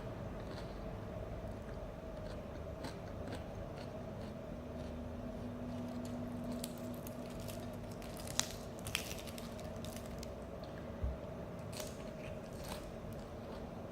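Chewing and crunching of raw salad vegetables such as carrot and lettuce leaves, with scattered crisp crunches, two sharper ones a little past halfway. A steady low hum runs underneath.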